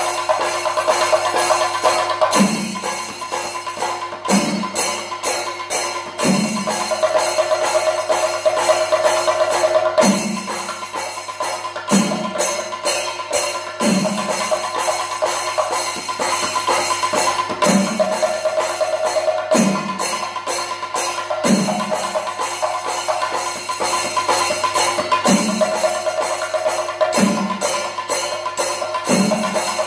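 Chenda drums playing thayambaka: dense, rapid stick strokes on the drumheads over a steady beat, with a deep stroke about every two seconds and ilathalam cymbals ringing throughout.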